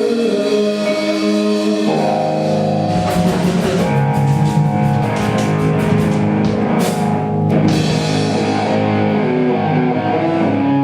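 Live rock band playing: sustained electric guitar chords, with a drum kit's cymbals and drums coming in about three seconds in and dropping out again near the end.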